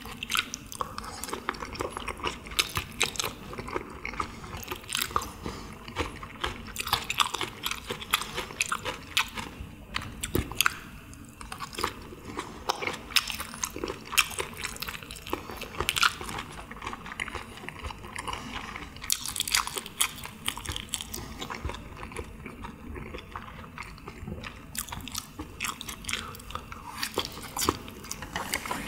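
Close-miked chewing of chewy Korean pressed meat (pyeonyuk), with dense, irregular wet mouth clicks and crunches.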